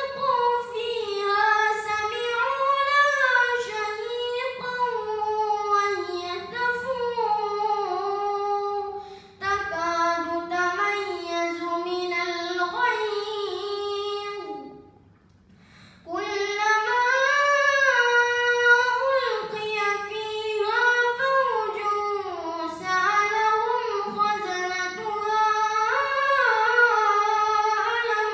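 A boy's high voice reciting the Quran in melodic tilawah style: long held phrases with the pitch rising and falling in ornamented turns. It breaks off for a breath about halfway through, then starts the next phrase.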